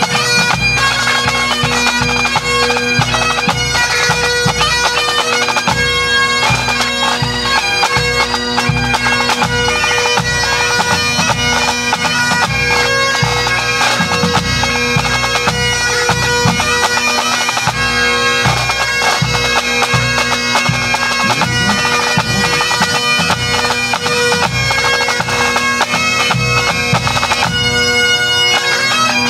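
Pipe band playing: Great Highland bagpipes sounding a melody over their steady drones, with snare and bass drums beating under them.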